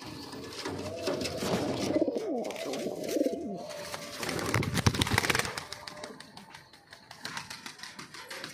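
Domestic pigeons cooing in low, warbling calls over the first few seconds. A burst of loud rustling comes about five seconds in, and a wing flap near the end.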